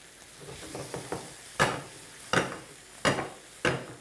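Spatula scraping and knocking against a frying pan as tomatoes, onions and curry leaves are stirred over the heat, with the oil sizzling underneath. A few light knocks, then four sharp strikes about two-thirds of a second apart through the second half.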